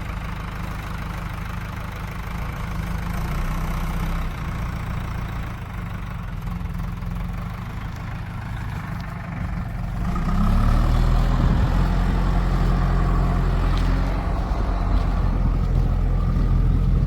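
Heavy diesel engine of earth-moving machinery running at a steady low speed, then revving up about ten seconds in and holding at a higher, louder speed, as under working load.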